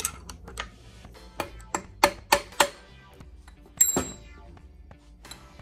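Light metallic clicks and clinks of a steel ball bearing being slid onto a Ford T18 transmission's main shaft and seated against the case, a quick run of them in the middle and a louder clink with a short ring about four seconds in, over background music.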